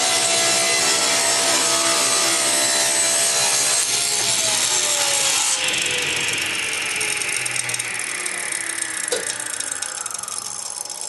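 Power saw cutting a thin test strip of purpleheart. About four seconds in the saw is switched off and its whine falls steadily in pitch and fades as the blade winds down.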